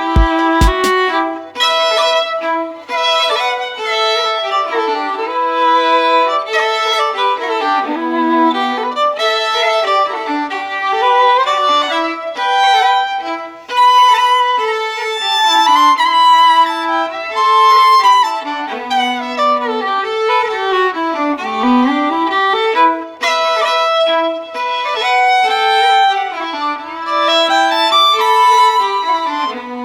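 Background music: a violin playing a melody.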